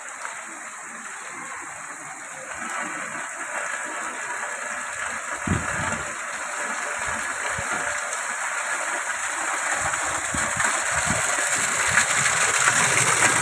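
Heavy rain falling on a concrete lane and brick walls, a steady hiss of falling and running water that grows louder over the last several seconds.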